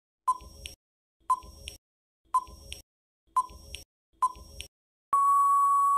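Quiz countdown timer sound effect: five short electronic ticks about once a second, then a steady beep about a second long marking that time is up.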